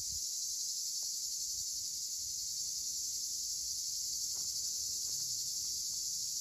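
A chorus of insects in the rice field: a steady, high-pitched, unbroken buzz.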